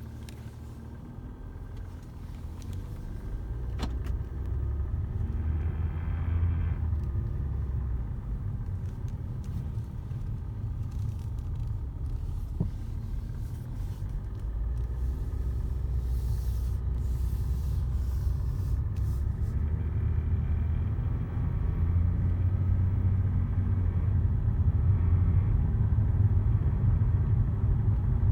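Inside a Jaguar XJ on the move: a steady low rumble from the road and engine that grows louder over time, with a faint squeak from under the dashboard heard now and then.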